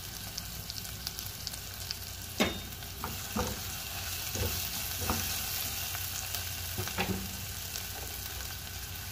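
Sliced shallots and garlic sizzling steadily in hot oil in a non-stick pot as they are sautéed until browned, with a spatula now and then scraping and knocking against the pot. The loudest knock comes about two and a half seconds in.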